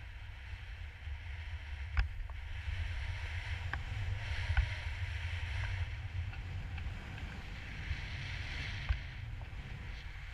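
Skis hissing through powder snow on a descent, over a steady low rumble of wind buffeting the camera's microphone. A few brief knocks come through, the loudest about two seconds and four and a half seconds in.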